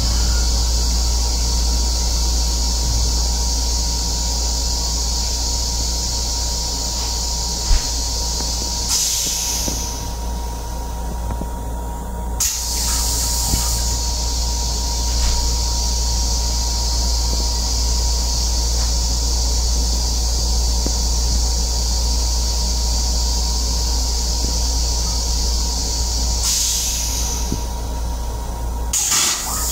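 Metro-North M7 electric railcar in motion, heard from inside its restroom: a steady low rumble under a steady hiss, with a faint steady tone. There is a single click about eight seconds in and a few brief surges of hiss along the way.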